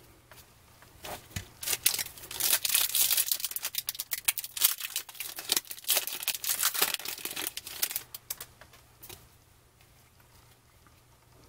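A foil trading-card pack wrapper being torn open and crinkled in the hands, a dense crackling that dies down about nine seconds in.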